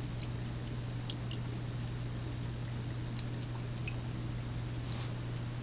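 Thirsty Cat pet water fountain running: a steady low pump hum under trickling water, with scattered small drips.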